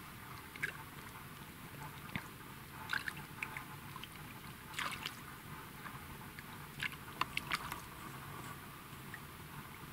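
Small fish splashing at the surface of still water as it is brought in on a fishing rod: faint, short splashes and drips scattered through, about one a second.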